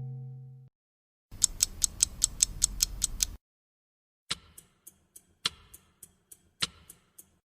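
Mechanical clicking: a run of about ten evenly spaced sharp clicks, roughly five a second over a low rumble, then after a short silence a slower, irregular series of clicks and ticks. The fading tail of a ringing bell-like tone is heard in the first moment.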